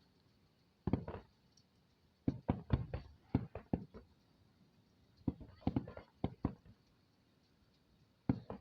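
Fireworks going off at a distance: sharp bangs with short echoes, in quick clusters of several reports at a time.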